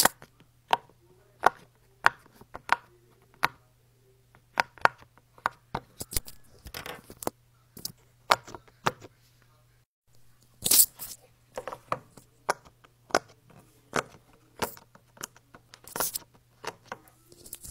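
Bubbles of a silicone pop-it fidget toy being popped one after another by fingers: a string of sharp pops, irregularly spaced and sometimes in quick runs of two or three.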